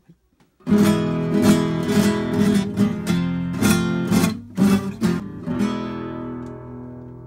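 Classical guitar strummed in a run of chords beginning just under a second in. The final chord is left to ring and slowly fades.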